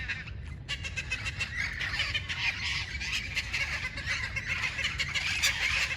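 A flock of red-crowned amazon parrots calling, many overlapping squawks and chatter with no break.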